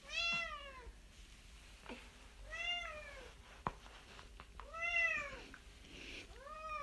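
A Korean shorthair cat meowing four times, about two seconds apart, each meow rising then falling in pitch. A faint click comes between the second and third meows.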